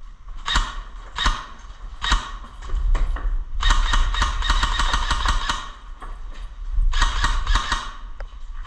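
Airsoft guns firing: a few single shots, then a rapid burst of about two seconds and a second, shorter burst near the end.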